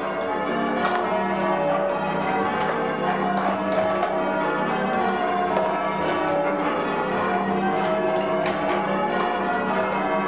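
The restored ring of eight church bells of St Mary the Virgin, Bampton, rung full circle in change ringing: a continuous stream of overlapping bell strikes, each leaving its tone hanging over the others.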